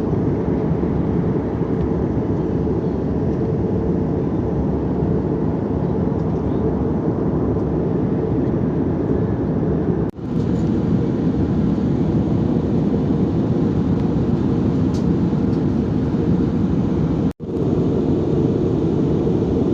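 Steady airliner cabin noise: the low rush of engines and airflow heard from a passenger seat. It cuts out for an instant twice, about ten and seventeen seconds in.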